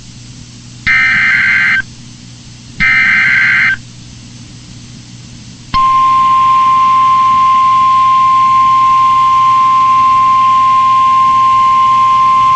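NOAA Weather Radio Emergency Alert System tones: two SAME digital header bursts, each about a second of buzzy warbling data tones with radio hiss between them, then about six seconds in the steady 1050 Hz warning alarm tone starts and holds.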